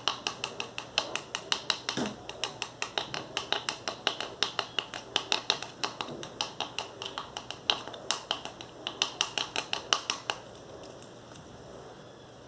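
A metal key making rapid sharp clicks, about five a second, that stop about ten seconds in.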